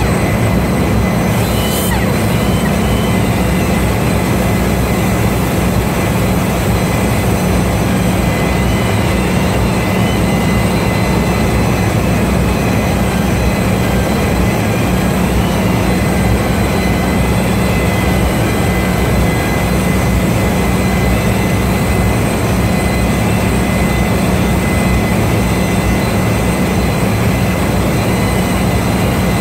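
A handheld rotary power tool running continuously with a steady high whine over a low hum while cleaning carbon from the head and seat face of a ship's main-engine exhaust valve.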